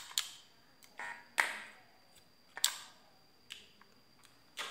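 Scattered light clicks and taps, about seven over a few seconds, from hands working wires on a salvaged TV audio circuit board while its ground wire is being soldered.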